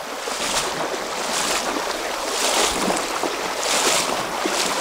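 Water rushing and splashing in a trout stream, with a swish about once a second as legs wade through the current.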